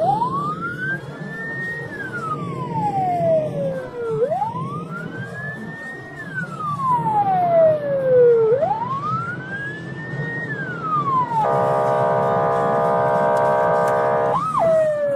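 Emergency-vehicle siren wailing: three cycles, each rising quickly and falling more slowly over about four seconds. Then, about eleven seconds in, a steady blaring tone for about three seconds, broken by a quick up-and-down whoop near the end.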